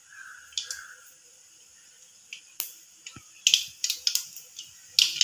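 Mustard seeds popping and spluttering in hot oil in a kadai, first a few single pops, then quicker and louder clusters of sharp cracks as they start to burst. A crow caws in the first second.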